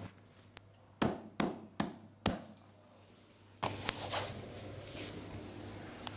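Four sharp thumps about half a second apart, followed from about three and a half seconds in by soft rustling of fabric.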